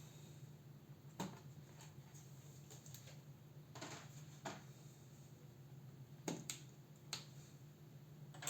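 Scattered light clicks and taps of small tools and parts handled against a laptop's case, about eight irregularly spaced, over a faint steady low hum.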